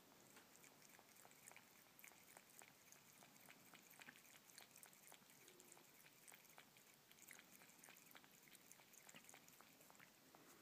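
Faint, irregular wet clicks of a cat licking up water that it scoops with its paw from a glass saucer.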